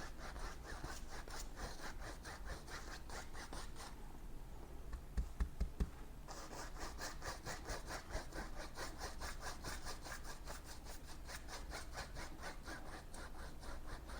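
Bristle brush scrubbing oil paint onto stretched canvas in quick, even back-and-forth strokes, about four a second. The strokes stop for about two seconds after about four seconds, where a few soft low knocks sound, then start again.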